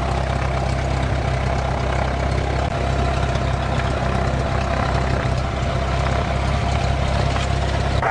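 Small high-wing airplane's piston engine running steadily at low taxi power, heard from inside the cabin.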